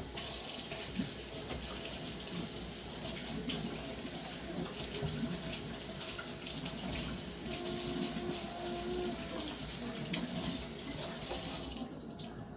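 Kitchen sink tap running in a steady stream as a celery stick is rinsed under it, shut off suddenly near the end.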